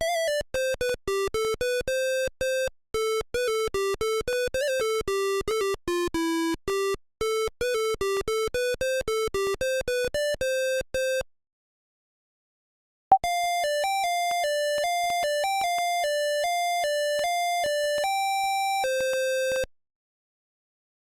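Zetafone LT-600 ringtones: monophonic melodies of short, buzzy electronic beeps. One fast tune stops about eleven seconds in. After a pause of about two seconds, a second, different tune plays and stops a second or so before the end.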